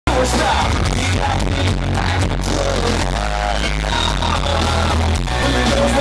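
Live country music: a full band playing loud with strong bass, and a man singing into a microphone, heard from the crowd.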